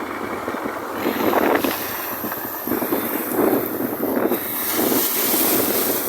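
Ocean surf: waves breaking and washing in, swelling and easing every second or two, with wind rushing over the microphone.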